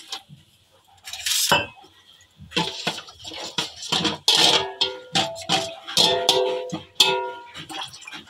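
Water splashing briefly into a stainless steel bowl about a second in, then a metal spoon clinking over and over against the bowl while stirring and washing dalia in water, the bowl ringing at the same few pitches after each strike.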